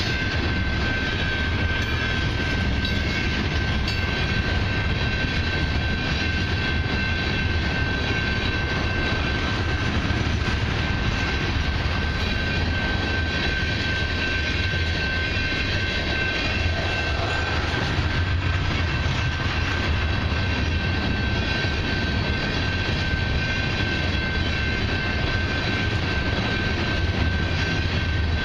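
Loaded crude oil tank cars of a long freight train rolling past, a steady rumble of wheels on rail at an even level, with a steady high tone running over it.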